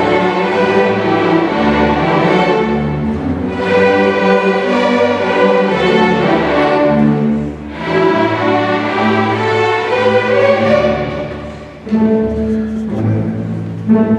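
Large beginner student string orchestra of violins, cellos and double basses playing an ensemble piece, with sustained notes that change every second or so and a brief dip in loudness near the end.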